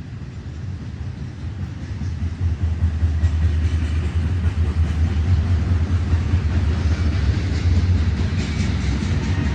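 Norfolk Southern freight train's diesel locomotives drawing near, a deep engine rumble growing louder over the first two or three seconds, then holding steady with a clatter of wheels on rail.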